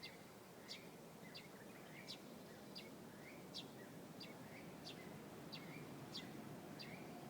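Small songbird chirping, a short sharp high note with a softer lower note beside it, repeated evenly about every two-thirds of a second, faint over a steady low background rumble.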